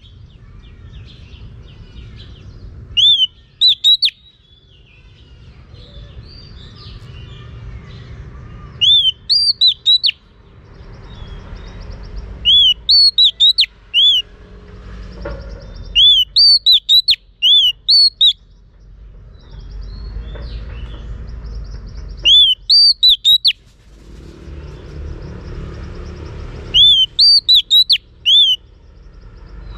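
Female oriental magpie-robin singing: six short phrases of three to five loud, clear arched whistles, a few seconds apart, over a low background rumble.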